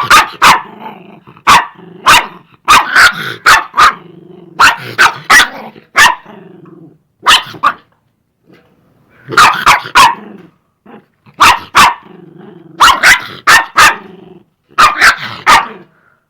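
An angry dog barking loudly in quick clusters of two to four sharp barks, with low growling between the clusters and a brief pause about halfway through.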